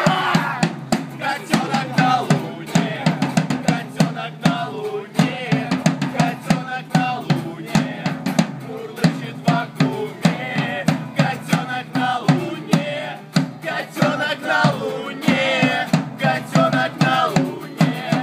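Live acoustic street band playing: two acoustic guitars strummed while a floor tom is struck with drumsticks in a fast, steady beat, with several male voices singing over it.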